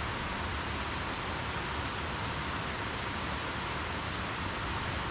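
Steady rushing of a small river running over rocky rapids, an even hiss that does not change.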